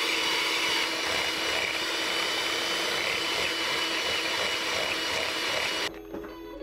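Electric hand mixer running steadily, its wire beaters whisking egg yolk and oil as homemade mayonnaise emulsifies and thickens. It cuts off suddenly near the end.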